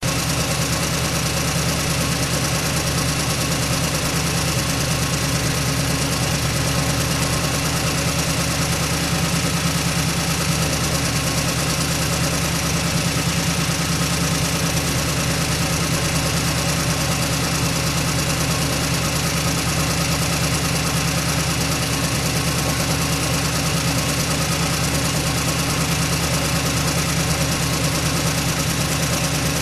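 1928 Ford Model AA truck's four-cylinder engine idling steadily.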